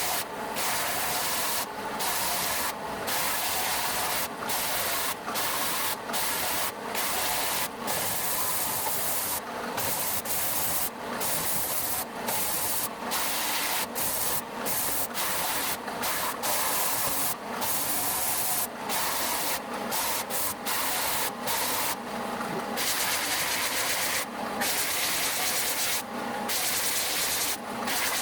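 Sandpaper rasping on a small wooden box, its lid and base sanded together, in repeated strokes with brief breaks between them about once a second.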